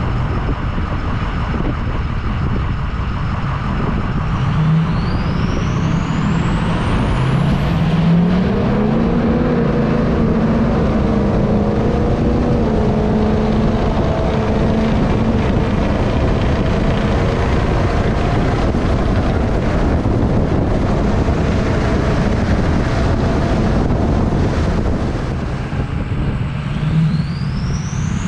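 Ford Powerstroke turbo-diesel pickup making a drag-strip pass under full throttle. The engine note climbs as it launches about five seconds in, with a high whistle rising alongside it, then holds steady for the rest of the run over a heavy rush of wind.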